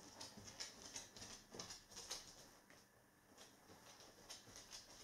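Faint clicking of a Goldendoodle's claws on a hard floor as it walks, scattered light ticks through the first half and again near the end.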